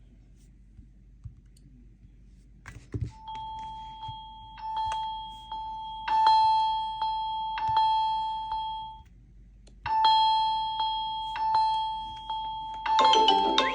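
A smartphone's electronic ringtone: one held chime-like tone that fades and repeats about every one and a half seconds, with a short break about nine seconds in. A few clicks come just before it starts, and a different, busier tune begins near the end.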